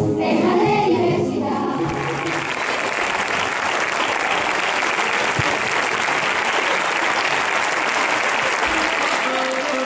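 A large children's choir sings its final notes, stopping about two seconds in, then the audience applauds steadily.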